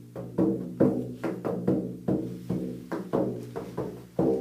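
A classical guitar and a bodhran playing together: plucked guitar notes ring over a steady low note, and the bodhran is struck with a tipper on each beat.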